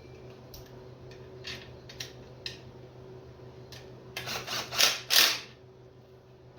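Metal tools working on bolts: a few light clicks, then a cluster of louder rattling bursts about four seconds in.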